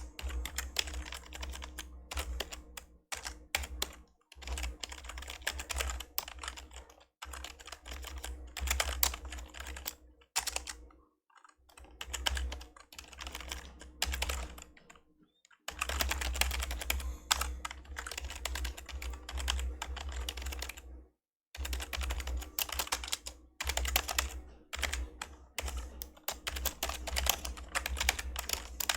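Fast typing on an old membrane computer keyboard: rapid runs of keystrokes broken by short pauses, the longest about ten seconds in.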